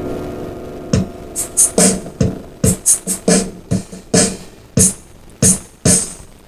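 A guitar chord rings out and fades, then a beatboxed rhythm starts about a second in: low kick-drum thumps alternating with hissing hi-hat sounds made by mouth.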